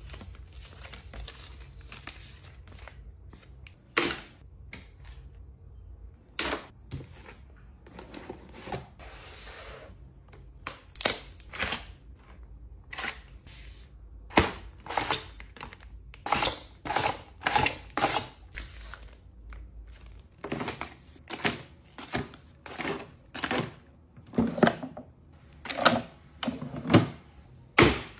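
Foil and plastic skincare sachets and sheet-mask packets being handled, crinkling, with sharp taps and clicks. There are only a few at first, then from about halfway they come quickly, about one or two a second.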